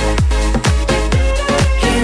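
Upbeat electronic dance music with a steady, deep kick-drum beat.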